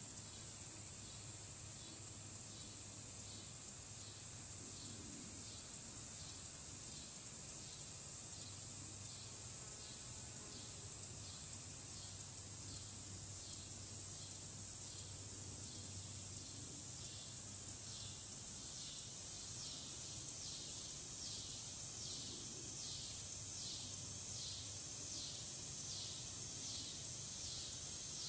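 Insect chorus: a steady high-pitched drone with a pulsing insect call repeating about twice a second, which grows stronger in the second half.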